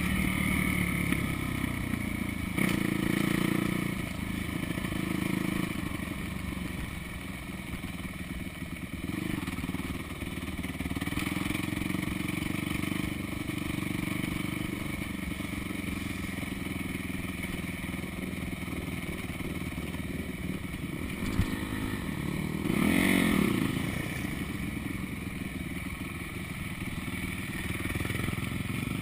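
Dirt bike engine running under way, the throttle opened and eased repeatedly, with stronger bursts of revs near the start, around 3 seconds in and about three-quarters of the way through.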